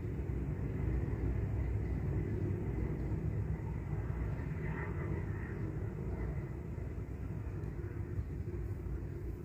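A steady low rumble, with a faint brief higher sound about five seconds in.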